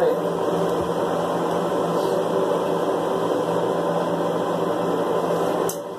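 Water running from a bathtub tap: a steady rushing hiss that stops abruptly near the end.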